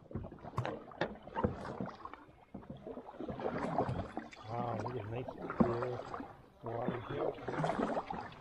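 A canoe being paddled: paddle strokes in the water, with several sharp knocks.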